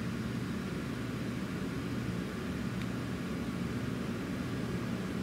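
Steady low hum with a constant hiss of background noise and no distinct events.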